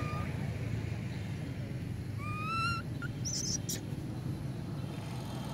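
A long-tailed macaque gives one short, high, wavering coo about two seconds in, followed by a brief high chirp and a click, over a steady low rumble.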